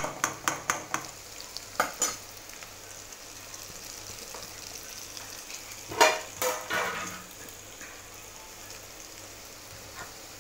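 Potatoes, green chillies and crushed peanuts sizzling in oil in a metal kadhai, the oil still bubbling. A spoon clinks and scrapes against the pan: a quick run of clinks in the first second, a couple more about two seconds in, and the loudest knocks around six seconds in.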